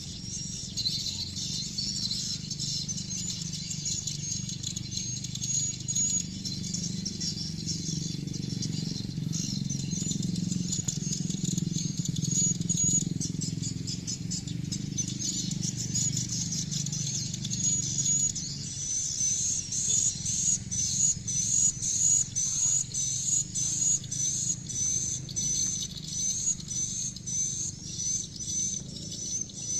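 Swiftlets' high-pitched chirping calls, repeating throughout and settling into a regular run of about two chirps a second in the second half, over a low rushing noise that fades after the first half.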